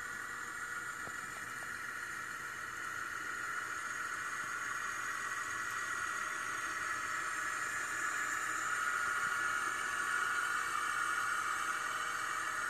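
A steady hiss that grows slightly louder, with a few faint ticks about a second in.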